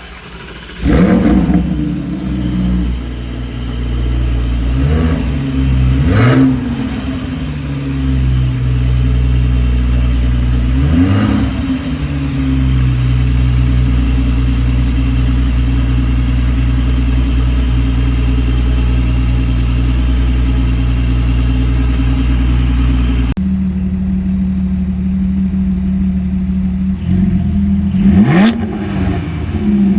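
Porsche 718 Spyder's 4.0-litre flat-six idling, with sharp throttle blips whose pitch rises and falls back. There is one blip about a second in, two around 5 to 6 seconds, and one around 11 seconds. After an abrupt change in the sound about 23 seconds in, it idles again and gives two quick revs near the end.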